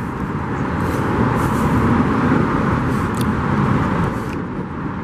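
Steady road traffic noise from the car lanes running beneath the Brooklyn Bridge's pedestrian walkway, a dense rumble that swells a little in the middle and eases near the end.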